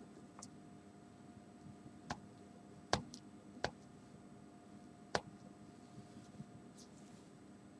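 Four light, sharp clicks of a gloved fingertip tapping a Vernier LabQuest touchscreen, spread over a few seconds with the loudest about three seconds in, over a faint steady room hum. The taps run the spectrophotometer's calibration against a distilled-water blank.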